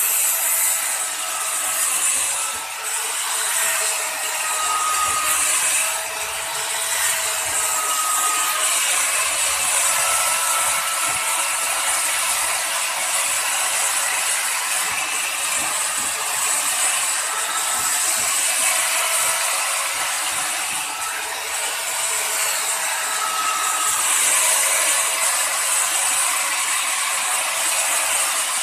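Angle grinder running with its grinding disc pressed against the steel knife of a wood planer's cutterhead, sharpening it: a steady high grinding hiss over the motor's whine, whose pitch wavers slightly.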